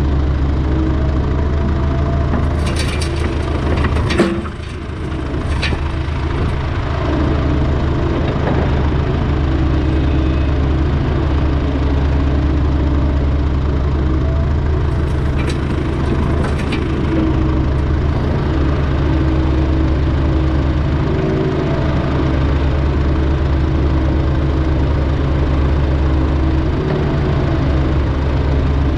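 Diesel engine of heavy earthmoving equipment running steadily, with a few short metallic clanks and one sharp knock about four seconds in.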